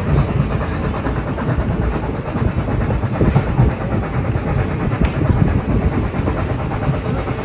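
Train running with a steady, rough rumble.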